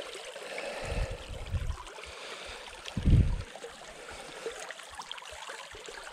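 Small creek trickling over a shallow bed, with a few low bumps on the microphone, the loudest about three seconds in.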